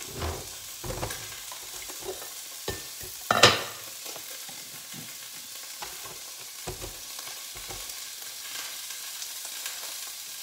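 Skirt steak searing in oil in a hot stainless steel pan: a steady sizzle. Several dull knocks and one brief, louder scrape about three and a half seconds in stand out above it.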